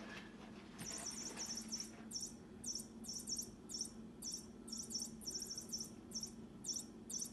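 Electronic chirping from a feathered bird cat toy on a string wand as it is swung about: high-pitched trilled chirps in short, irregular bursts, repeated many times.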